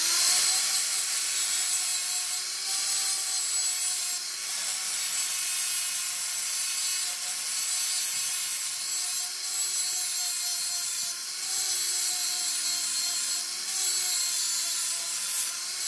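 Angle grinder grinding the cutting edge of a steel lawnmower blade to sharpen it: a steady motor whine under a loud grinding hiss. The grinding eases briefly and comes back every couple of seconds as the disc is worked along the edge.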